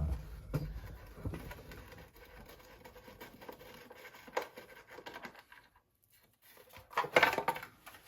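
Scattered light clicks, taps and scrapes of hand tools and small metal parts being handled during a moped engine tear-down, with a brief louder noise about seven seconds in.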